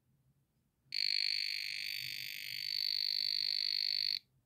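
Electronic phase-indicator voltage tester beeping one steady, high-pitched tone for about three seconds, starting about a second in and cutting off sharply, as it picks up voltage on the electric heating sheet's heating wire.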